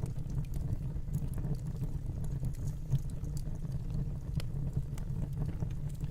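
Wood fire burning in a fireplace: a steady low rumble with scattered small crackles and pops, one louder pop about three seconds in.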